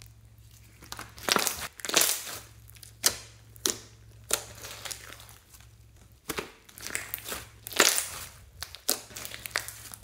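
Hands stretching, poking and pressing a large mass of glitter-flecked slime, making irregular sticky crackles and pops, loudest about two seconds in and again near the end.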